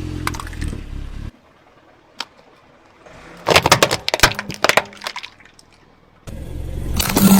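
A car engine running as the car rolls, then after a cut a rapid run of sharp cracking and crunching for about a second and a half as a car tyre crushes crunchy plastic toys; the car's engine and rolling noise come back near the end.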